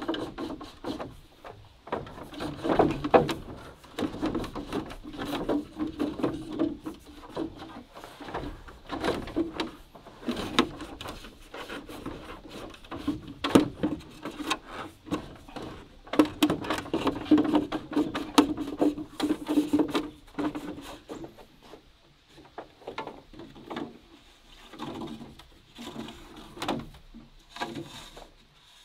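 Green bamboo poles knocking and scraping as bamboo crossbars are worked through holes cut in bamboo posts: a long run of irregular wooden knocks and rubbing, quieter for the last several seconds.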